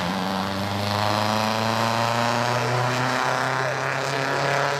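Vintage sports car's engine running hard at a steady pitch as the car drives past on the hill-climb course.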